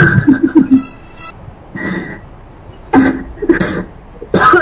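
Short, breathy bursts of a person's voice, cough-like, coming several times with gaps between them, and a brief high tone about a second in.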